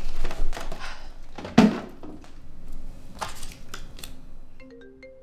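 Plastic cookie wrapper crinkling and rustling as it is handled, with one sharp knock about a second and a half in. Near the end a phone ringtone starts, a quick melody of short notes.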